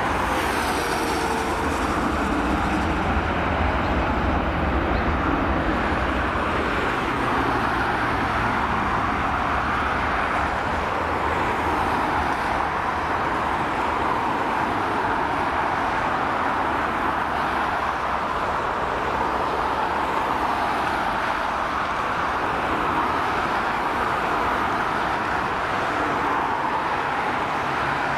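Airbus A320-214's CFM56 jet engines at takeoff thrust during the takeoff roll: a steady loud roar with a deep rumble underneath.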